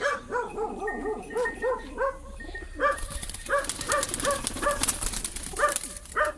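A small dog yapping rapidly and repeatedly, several short yaps a second.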